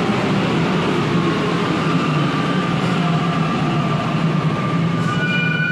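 Santiago Metro NS93 electric train running on the track, a continuous steady rumble with a low hum. About five seconds in, several high steady whining tones come in, part of the train's characteristic traction or braking sound.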